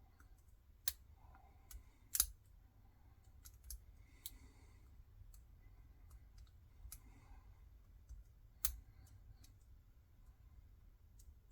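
Irregular faint clicks and scrapes of a lock pick working the pin stack inside an Abus 85/40 five-pin padlock, with two sharper clicks about two seconds in and near the end.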